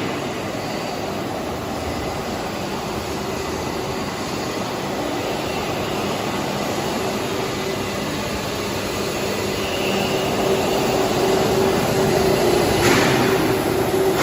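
Automatic welding machine running on a stainless steel tank dish top: a steady mechanical hiss with a low hum under it, growing louder near the end.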